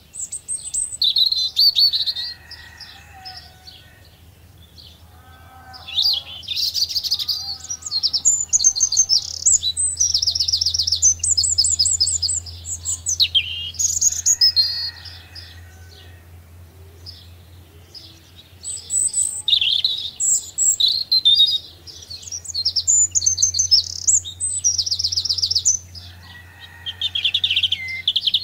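Several small songbirds singing in a woodland chorus: quick trilled and chirping phrases in bursts with short pauses, some lower warbles among them, over a faint steady low hum.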